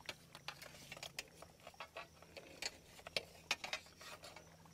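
Steel crab hook being worked into a mud crab hole, giving faint, irregular metallic clicks and taps, sharpest a little after three seconds in. The clicks are the rod knocking against rock, not a crab fighting back against the hook.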